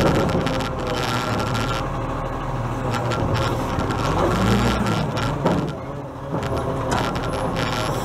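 Side-loading garbage truck's diesel engine running while its hydraulic arm reaches out, grips a wheelie bin and starts to lift it. The engine revs rise a little past halfway as the hydraulics work, with a few knocks from the arm and bin.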